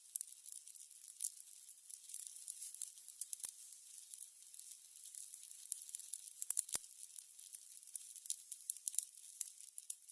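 Burning candles crackling: quick, irregular crackles over a faint hiss, with a few louder pops, one about a third of the way in and a cluster about two-thirds through.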